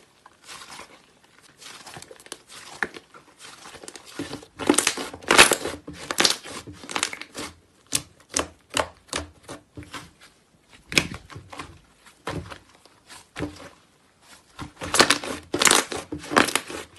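Thick pale slime being stretched, folded and pressed by hand, giving a dense run of irregular sticky clicks and crackles. The clicks come in louder clusters about five seconds in and again near the end.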